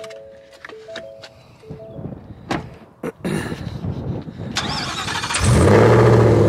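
A few short dashboard chimes, then the starter cranks for about two seconds before the Whipple-supercharged V8 of a 2022 Ford F-150 catches, about five seconds in, and settles into a steady idle, its exhaust toned down by bullet mufflers.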